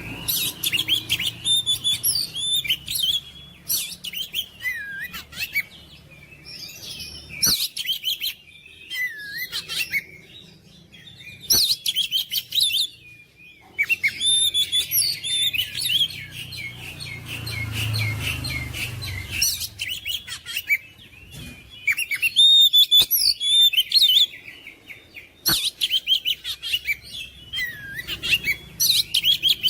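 Oriental magpie-robin (kacer) singing: bursts of loud, varied whistles and rapid warbled phrases, separated by short pauses.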